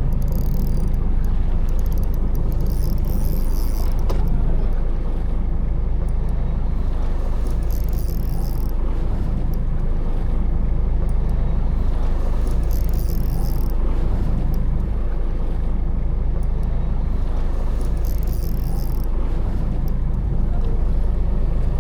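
Fishing boat's engine running steadily, a low drone with wind on the microphone and short bursts of high hiss every four to five seconds.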